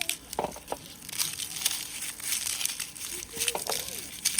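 Dry crinkling and crackling from something papery or plastic being handled: a run of quick, irregular crackles.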